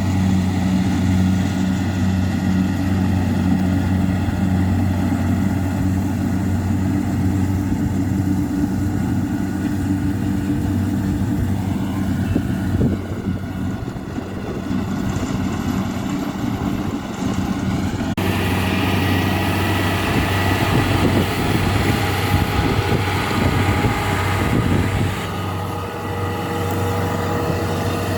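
Kubota DC70 combine harvester's diesel engine running steadily with a constant low hum. About two-thirds of the way through, the sound turns brighter, with more hiss and clatter over the hum.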